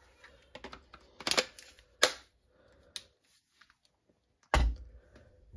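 Hard plastic clicks and knocks of a Parkside 20 V cordless drill-driver having its battery pack taken off and a 4 Ah pack clicked into place, with a heavier knock about four and a half seconds in as the drill is set down.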